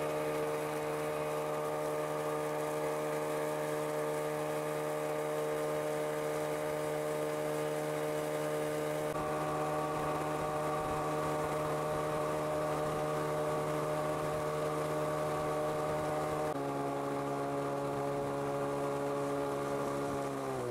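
Motorboat engine running steadily under way, a steady droning note. Its pitch shifts abruptly twice and glides down near the end as the engine slows.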